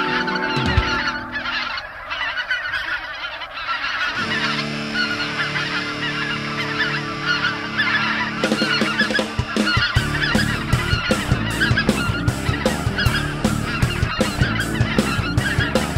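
A large flock of snow geese calling overhead: a dense, continuous din of many overlapping honks.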